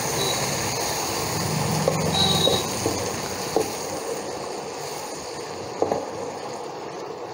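Wooden spatula stirring a watery sprouts masala gravy in a nonstick pan, with a few light knocks of the spatula against the pan over a steady hiss from the hot pan.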